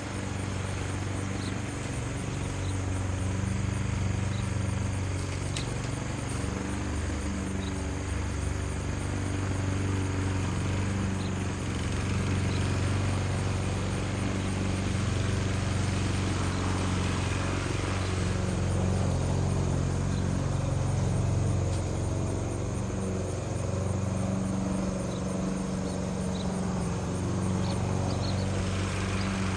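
Small engine running steadily for the whole stretch, its pitch wavering slightly without big revs.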